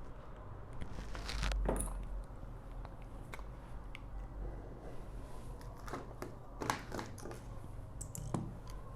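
Faint scattered clicks and light clatter of small tools and phone parts being handled on a workbench, over a low steady hum.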